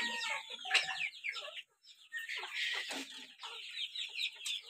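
A flock of young chickens peeping and clucking, many short calls overlapping, with a brief lull about two seconds in.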